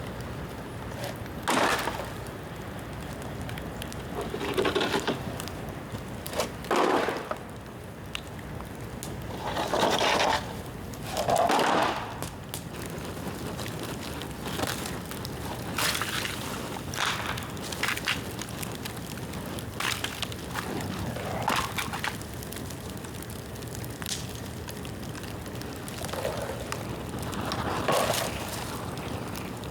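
A bamboo bonfire burning, with irregular loud crackles and short rushing noises every few seconds over a steady background.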